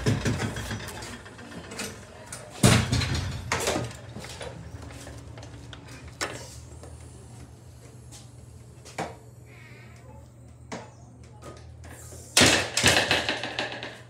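Commercial glass storefront doors with overhead surface-mounted door closers swinging and shutting: a series of knocks and thuds, the loudest at the start, about two and a half seconds in, and a cluster near the end, over a steady low hum.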